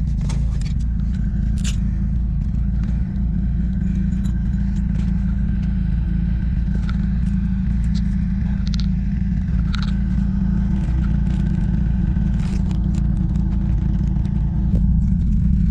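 A steady engine rumble that holds level throughout, with scattered light clicks and scrapes on top.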